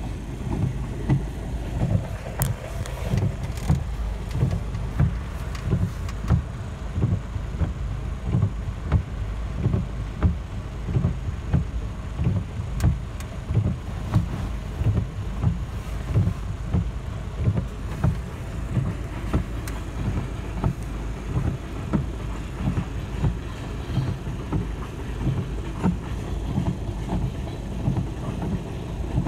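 Coal train hopper cars rolling past, a steady low rumble with a regular beat of wheel clatter about once or twice a second, heard muffled from inside a car.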